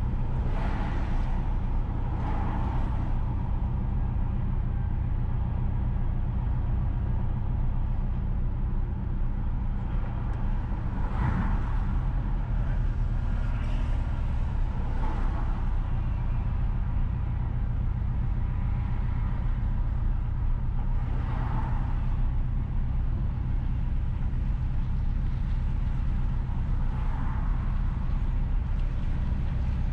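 A car driving slowly on a town road: a steady low drone of engine and tyres, with several brief swells of passing sound.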